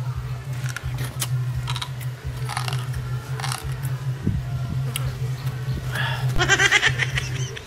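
A man chewing meat noisily with his mouth open, in scattered wet smacking bursts, over a steady low hum. A brief vocal sound comes near the end.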